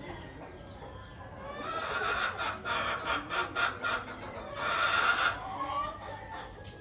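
A chicken calling: a run of quick, loud clucks, about four a second, from about two seconds in, then one longer held call about five seconds in.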